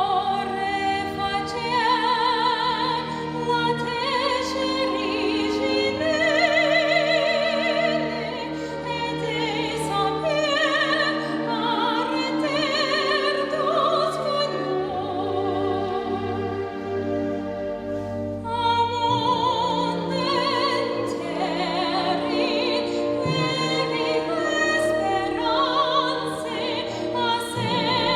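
Classical singing in an operatic style, with strong vibrato on long held notes over instrumental accompaniment. The voice drops out for a few seconds past the middle, then comes back.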